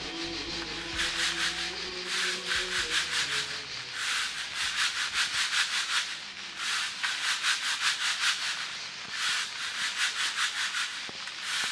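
A metal-rimmed mesh sieve being shaken and worked by hand to sift roasted barley flour (tsampa). It gives a rasping, several strokes a second, in runs of about two seconds with short pauses between.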